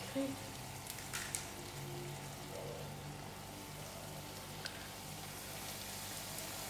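Oil sizzling steadily around banana puri dough deep-frying over low heat, with a few light clicks of metal forks about a second in and again later.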